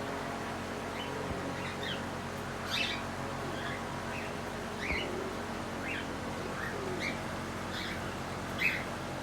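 Cockatiel chirping: short, separate chirps about once a second, the loudest near the end, over a steady low background hum.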